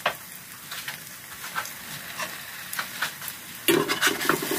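Buckwheat and chive pancake sizzling and crackling as it fries in a nonstick pan. Near the end a spatula scrapes in under the pancake, louder than the frying.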